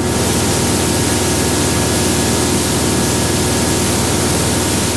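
Remos GX light-sport aircraft's Rotax 912 flat-four engine and propeller running steadily at full throttle in a climb, a constant drone under a strong even hiss, heard inside the cockpit.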